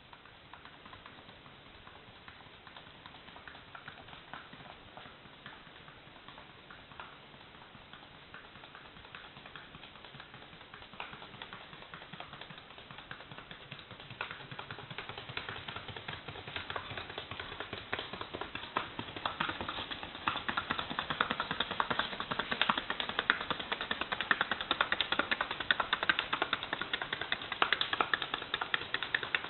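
Paso Fino horse's hooves beating out a rapid, even, fast-ticking gait, growing much louder over the second half as the horse comes closer.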